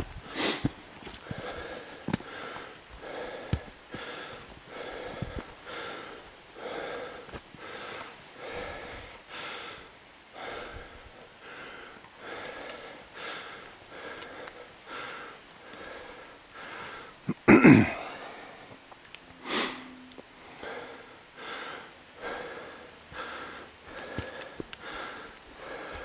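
Hard, wheezing breathing of a hiker on an uphill forest trail: quick, even breaths, more than one a second, the sign of lungs struggling with the effort. A loud sudden burst breaks in about two-thirds of the way through.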